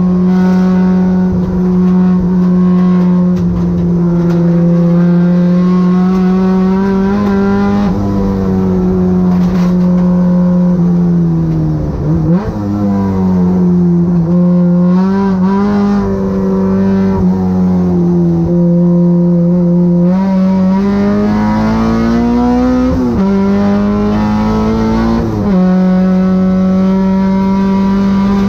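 K24-engined 2006 Honda Civic race car running hard at high revs, its four-cylinder note holding high and nearly steady. Twice, about twelve and about twenty-three seconds in, the note drops sharply and climbs again, as on a downshift under braking.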